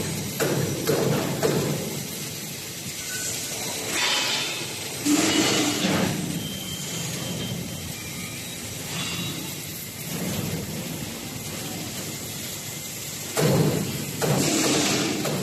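Irregular mechanical clattering and knocks, with two longer rushing bursts, one about a third of the way in and one near the end.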